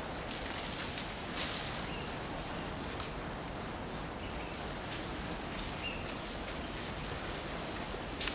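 Steady outdoor background hiss with a few faint short chirps and light ticks.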